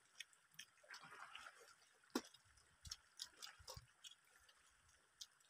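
Near silence with faint, scattered short clicks and smacks of people eating rice and fish by hand.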